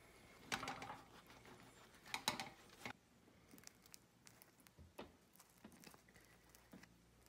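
Quiet kitchen handling sounds: two short scratchy rustles in the first three seconds, then faint scattered taps and clicks, as a silicone pastry brush spreads melted butter over bread buns and a hand handles a cheese-topped bun on a wire cooling rack.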